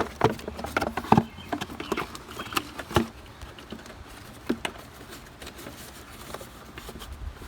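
Plastic air cleaner box clicking and knocking against its mounts as it is worked down onto the rubber grommets, a quick run of sharp clicks over the first few seconds, thinning to scattered knocks.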